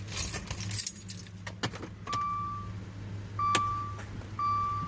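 Car keys jangling and clicking, then a car's dashboard warning chime sounding three times, each tone about half a second long and about a second apart, over a low steady hum.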